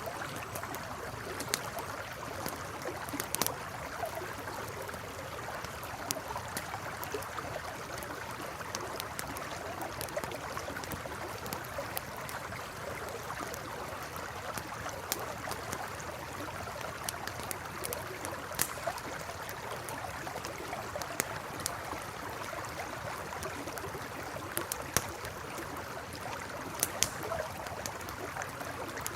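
Steady rush of a flowing river with a campfire crackling over it, irregular sharp pops scattered throughout.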